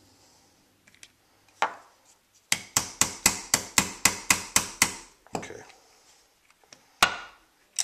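Small hammer tapping a punch to drive the ejector's roll pin out of an M60 machine gun bolt: one light tap, then a quick run of about ten taps at some four a second, then two more spaced taps.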